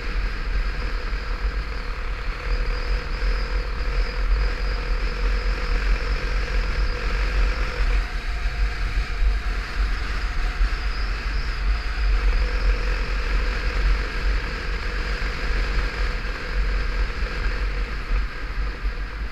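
Wind rushing and buffeting over the camera's microphone on a moving motorcycle, with the bike's engine running steadily at road speed underneath.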